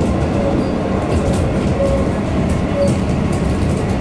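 Cabin noise of an EDI Comeng electric suburban train running at speed: a steady rumble of wheels on rail with light clicks and brief faint whines.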